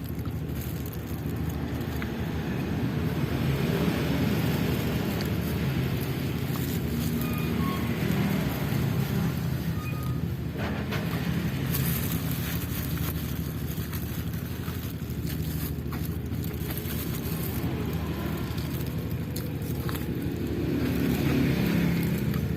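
Steady rumble of road traffic, swelling a little about four seconds in and again near the end.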